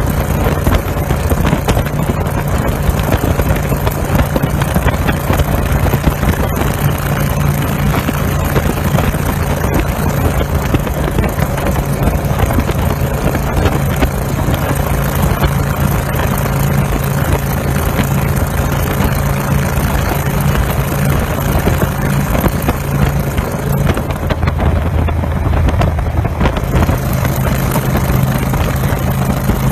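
Small motor vehicle's engine running steadily at speed with wind noise. Near the end the engine note drops lower for a couple of seconds, then comes back.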